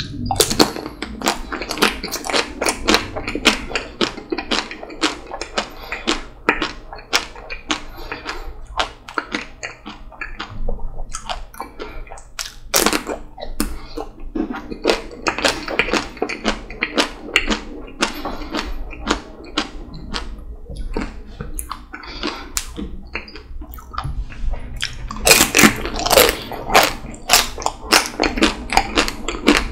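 Close-miked eating of a Magnum Double Raspberry ice cream bar: bites crack the chocolate shell, followed by chewing and many quick mouth clicks. The crackling is loudest and densest about 25 seconds in.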